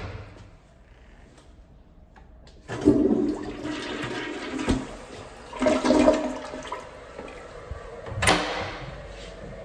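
American Standard Stallbrook flushometer toilet flushing. A sudden rush of water comes in about three seconds in, surges again a few seconds later as the bowl swirls and drains, then tapers off. A sharp clack follows near the end.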